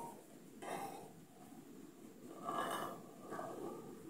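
A few faint, short rustles and breaths as a small round metal container is turned and worked by hand, being pried and twisted to open.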